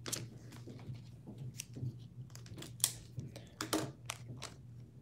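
Light clicks and soft plastic rustles of trading cards being handled and slid into sleeves, irregular, over a steady low hum.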